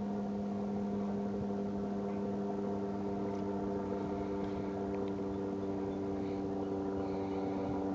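An engine running steadily, an even hum with several higher tones above it that holds at one pitch.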